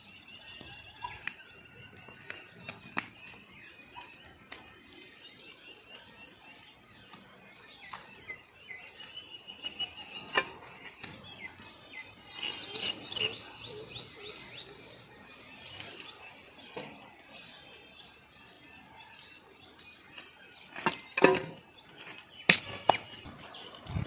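Small birds chirping and calling, many short high chirps throughout, with a few sharp clicks or knocks near the end.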